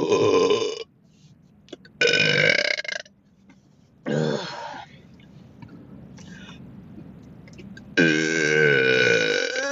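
A person burping four times in a row: long, pitched belches, the last one the longest at nearly two seconds.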